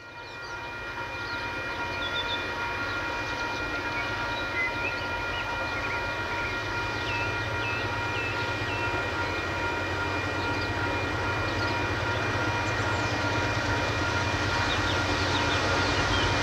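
A train hauled by four diesel-electric locomotives working hard up a grade, a low engine rumble growing steadily louder as it approaches, with a steady whine above it.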